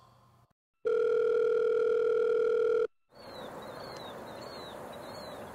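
Telephone ringback tone: one steady ring about two seconds long, heard on the caller's end of a call that goes unanswered. Then quieter outdoor ambience with a bird's short falling chirps repeating.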